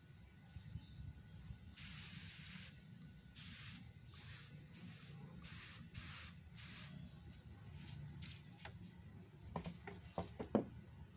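An air spray gun fed by a compressor spraying finish in short hissing blasts, about seven in the first seven seconds. About ten seconds in, a few sharp knocks and clicks as the bamboo plaque is picked up and turned over.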